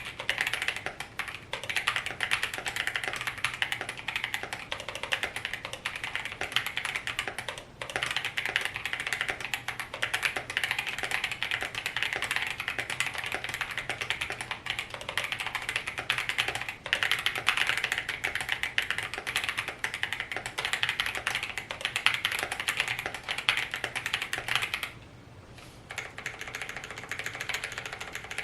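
Typing on an AKKO ACR75 mechanical keyboard with a stacked-acrylic case, Boba U4T tactile switches and PBT keycaps. The keys clack in a fast, continuous stream that the owner finds very plasticky, with a short pause about 25 seconds in.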